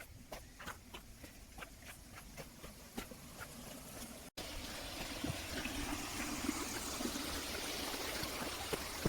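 Footsteps at a steady walking pace, about three a second. After a sudden cut about four seconds in, a stream's flowing water gives a steady rushing hiss.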